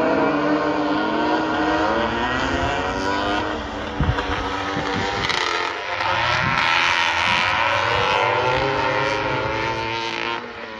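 Several flat track racing motorcycles revving and accelerating round a dirt oval, their engine notes rising and falling as they go through the gears and the turns.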